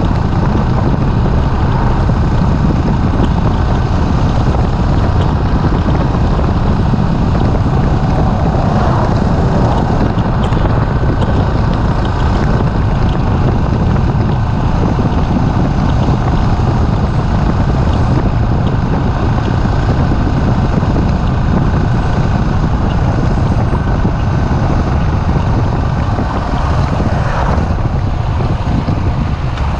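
Steady wind rush over the microphone mixed with the running of a Suzuki S40's single-cylinder engine, cruising at an even road speed.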